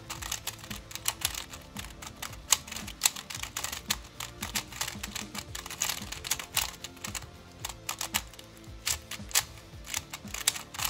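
A Rubik's Connected Cube, a plastic Bluetooth smart cube, is turned rapidly by hand in a scramble and solve. It gives a fast, irregular run of plastic clicks and clacks as its layers snap round.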